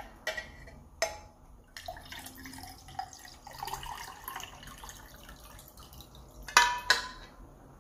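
Water poured from a plastic jug into a tall drinking glass, a steady trickling pour lasting a few seconds. A couple of sharp knocks follow near the end.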